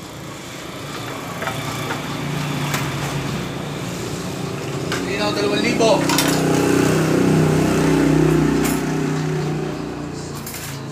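A motor vehicle's engine passing by, a steady hum that swells to a peak about eight seconds in and then fades, over the light clink of plates and spoons being handled.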